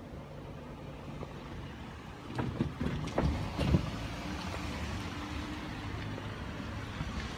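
Road traffic at the crossing: a vehicle passing, with a cluster of sharp knocks and thumps from about two to four seconds in, then a steady rushing noise.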